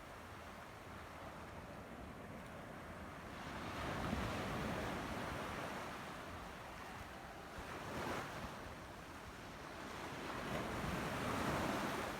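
Sea waves washing in on the shore, swelling and fading three times, with some wind on the microphone.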